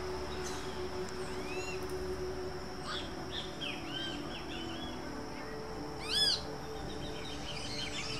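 Great kiskadees calling, a hungry fledgling and its parents: short, high, arched squeaky notes, a run of softer ones in the middle and one loud call about six seconds in.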